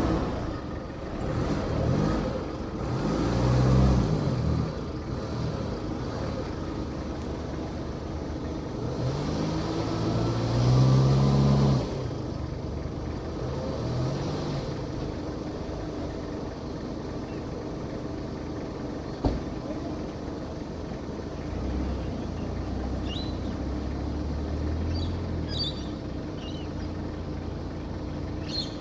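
A four-wheel-drive's engine revving up in bursts, three times in the first twelve seconds, then running steadily at lower revs. A single sharp click comes about two-thirds of the way through.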